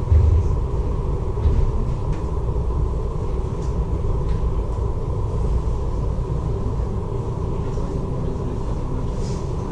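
Steady low rumble of a ferry's engines, with a faint steady hum over it.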